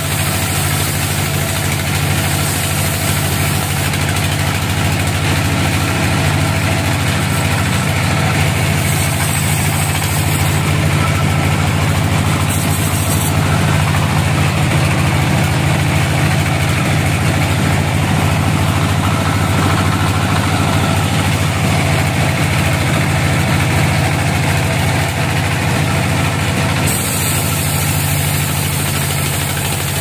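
Sawmill band saw running steadily with a low, even drone.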